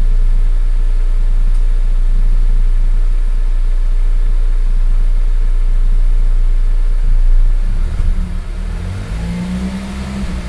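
Mazda CX-9 engine running steadily at idle; about seven seconds in the sound turns uneven and its pitch rises and falls as the engine is revved.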